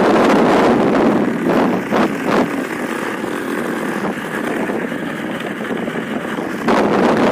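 Wind rushing over a phone microphone on a moving motorcycle. It sounds duller and a little quieter from about a second in until near the end, while a jacket sleeve covers the phone, with a few short knocks as the fabric brushes it.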